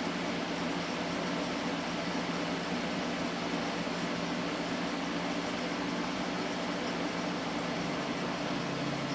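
Steady hum of a Gateway 2000 P5-133 XL desktop's fans and drives running while a CD's setup files copy to the hard drive.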